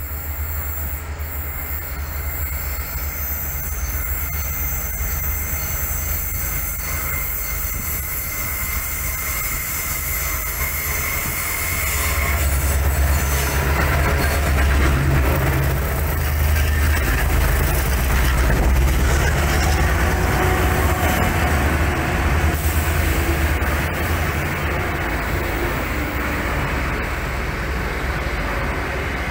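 A train passing close below: a steady low rumble with wheel-on-rail noise, growing louder about twelve seconds in and easing a little after about twenty-two seconds.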